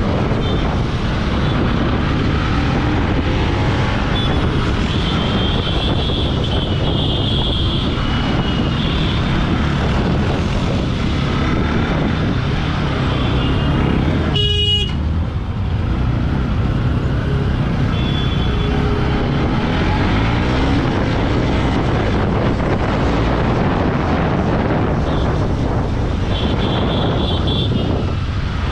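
Motorcycle riding through heavy city traffic: a steady rumble of engine and road noise, with vehicle horns tooting several times, and a short dropout about halfway.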